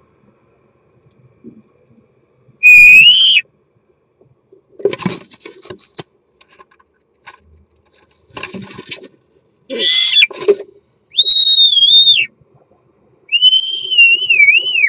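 A male European starling singing its courtship song at close range: several loud drawn-out whistles, one rising, others wavering and falling at the end, alternating with noisier rattling and clicking passages, with short pauses between phrases.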